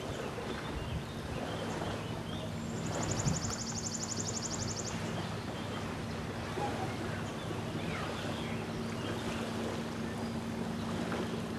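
Lakeshore ambience: small waves lapping and wind, under the steady low hum of a distant boat engine. A high, fast trill sounds for about two seconds starting around three seconds in, with faint bird chirps scattered through.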